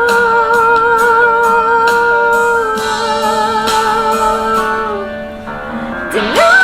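A woman holding one long sung note with a slight vibrato over a backing track with a steady beat and guitar; the note fades about five seconds in, and near the end her voice slides up into the next phrase.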